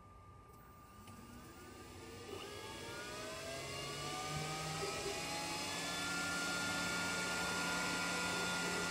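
Glowforge laser cutter starting a job: its fans spin up with a rising whine from about a second in, then run on steadily with a hum once up to speed.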